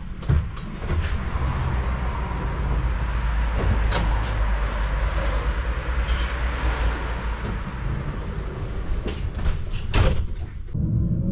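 Tram standing at a stop with its doors open: a steady low rumble with scattered clicks. About ten seconds in, the sliding doors close with a knock, and right at the end the tram's electric drive begins a rising whine as it pulls away.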